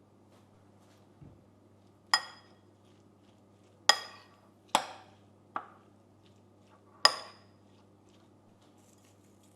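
Tableware clinking: five sharp clinks, each with a short ring, as dishes are handled and set down.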